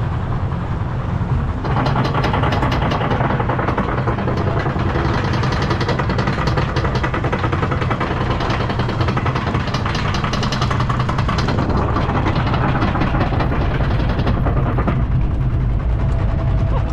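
Roller coaster train running along its track: a steady low rumble with rapid rattling from about two seconds in, which eases off near the end.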